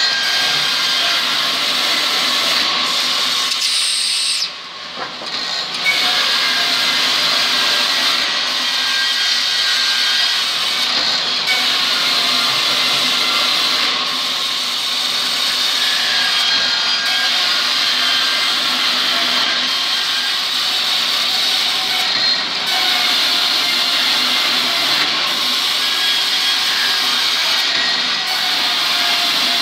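Woodworking power machinery running steadily with a dense, continuous whir, briefly dropping away about four seconds in.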